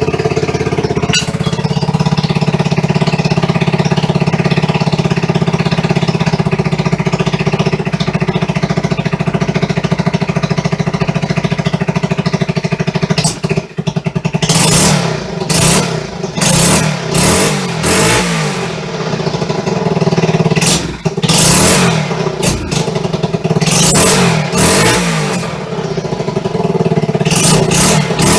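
1974 Honda XR75's single-cylinder four-stroke engine running steadily at a fast idle, its carburettor in need of a little adjustment. About halfway through the throttle is blipped again and again in short revs.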